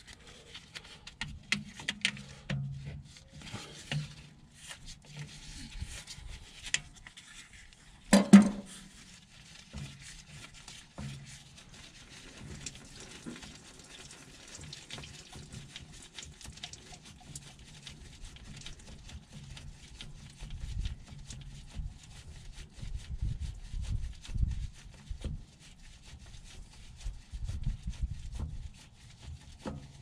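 Handling noise as gloved hands twist a spin-on transmission filter loose: scattered rubbing and clicks, with one louder knock about eight seconds in and a low rumbling scrape in the last third.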